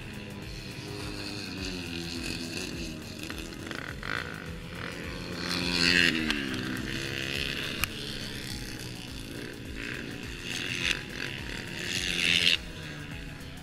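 Dirt bike engines revving hard as bikes race past on ice, with a loud pass about six seconds in whose pitch then falls, and another loud pass near the end.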